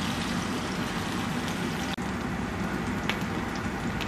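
Hot oil sizzling steadily in a frying pan as minced garlic, ginger and sliced green chillies fry, with a few small crackles. The aromatics are being fried until their raw smell cooks off.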